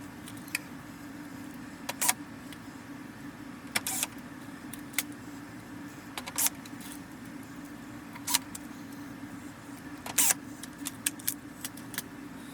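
Small screws and a screwdriver being worked into a projector's top cover: scattered sharp metallic clicks and taps at irregular intervals, over a steady low hum.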